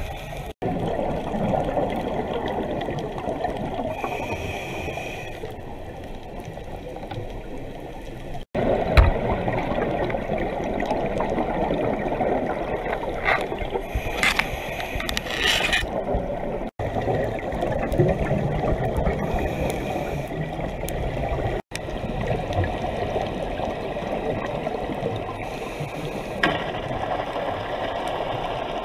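Scuba diver's breathing heard underwater through a GoPro housing: exhaled bubbles gurgling from the regulator in a steady rush of water noise, cut off sharply for a moment a few times.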